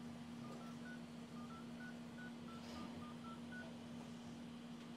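Keypad tones of a Xiaomi Note 4 smartphone's dialer as digits are tapped in: about a dozen short beeps in quick, uneven succession over some three seconds, with a steady low hum underneath. The phone is powered on and responding after a CPU reset-line repair.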